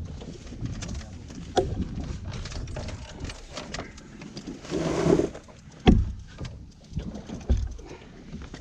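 Irregular knocks, clicks and thumps of fishing gear being handled on a small boat, with three sharp thumps and a short rushing noise about five seconds in.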